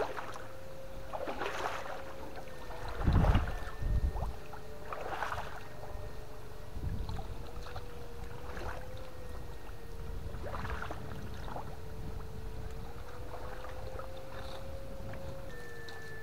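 Water splashing and sloshing every second or two, with a heavy splash about three seconds in, over a steady whine that wavers slightly in pitch.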